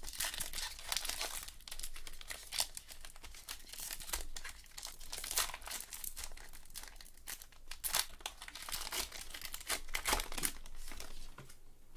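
Foil wrapper of a trading-card pack crinkling and tearing as gloved hands open it, in many irregular small crackles, with cards handled.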